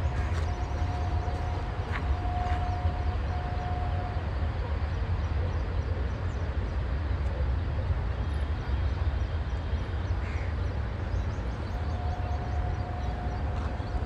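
Outdoor ambience: a steady low rumble, with a faint held tone that sounds for a few seconds about half a second in and again near the end.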